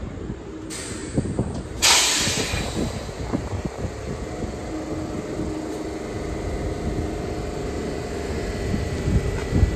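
Subway train of R46 cars standing at the platform: a sudden loud hiss of released air about two seconds in, fading over about a second, then the steady hum of the stopped train.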